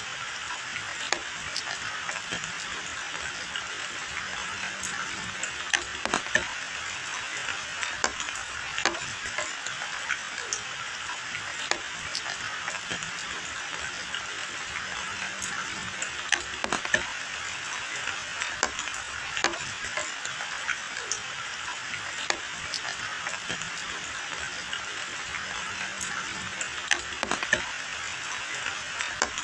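Steady rain falling, an even hiss dotted with frequent, irregular sharp ticks of drops striking close by.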